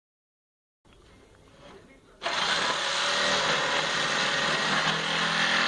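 Electric saw switched on about two seconds in, then running steadily, cutting into a cedar board.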